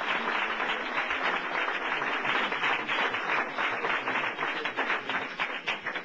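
Crowd applauding: dense clapping that thins to scattered separate claps near the end.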